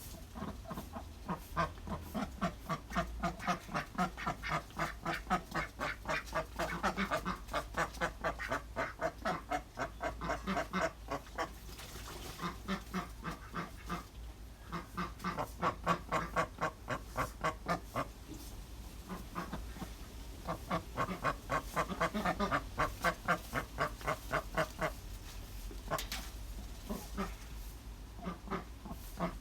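Ducks quacking in long runs of fast, evenly spaced quacks, with short pauses between the runs.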